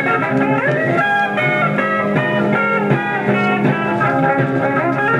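Guitar-led instrumental passage of a song from a 45 rpm record, played on a 1956 RCA 7-HF-45 Orthophonic high-fidelity record player through its tube amplifier and woofer-and-tweeter cabinet speakers, with the lid closed.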